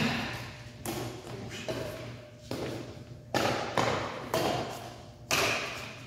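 A run of about eight knocks or thuds at uneven spacing, each sharp at the start and dying away with room echo.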